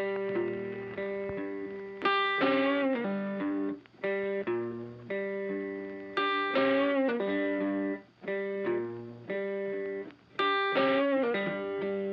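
Background music: a guitar playing short melodic phrases that restart about every two seconds.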